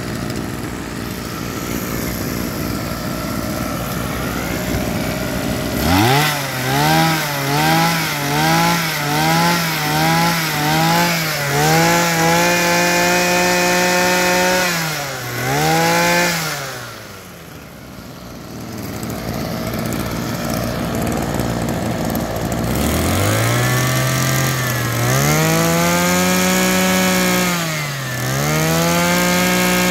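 Tanaka 25cc two-stroke brush cutter engine, idling and then revved: a quick run of about eight throttle blips, held at high revs, dropping back to idle around the middle, then opened up again and held at high revs to the end with one short dip.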